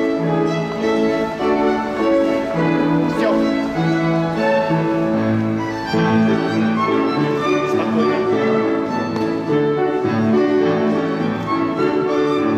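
Instrumental ballroom dance music with a violin carrying the melody over lower strings, playing continuously at a steady level.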